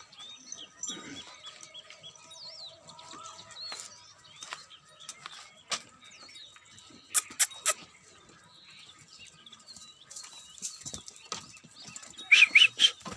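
Small birds chirping on and off, with a few sharp clicks or knocks and a louder burst of chirping and clicks near the end.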